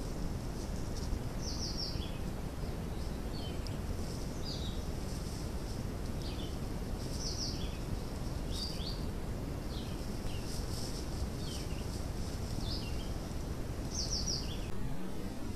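Small bird chirping in short, high notes, about once a second, over a steady low outdoor background rumble.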